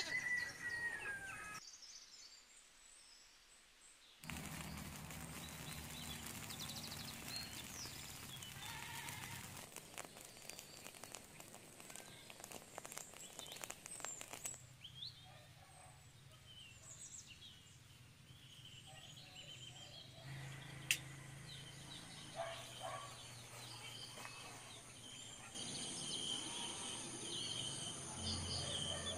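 Rural outdoor ambience across several short cuts: birds chirping and calling, with crickets trilling steadily near the end. A goat bleats right at the start.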